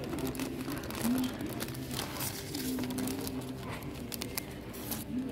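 Indistinct voices in the background, with light rustling and scattered clicks.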